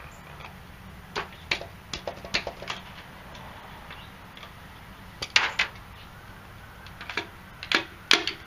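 Sharp metallic knocks in irregular clusters: pistons and connecting rods being pounded out of a Datsun L16 engine block's bores, which are stuck behind a ridge of rust buildup at the top of the bores. The knocks get louder near the end.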